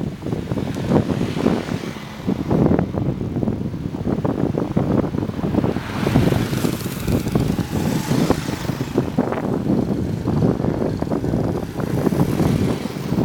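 Wind buffeting the microphone in irregular gusts, a dense low rumble and flutter.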